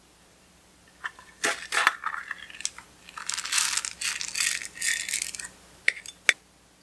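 Crackling and clicking from eyeshadow being worked into clear slime by hand, in a run of short bursts for about four seconds, then two sharp clicks.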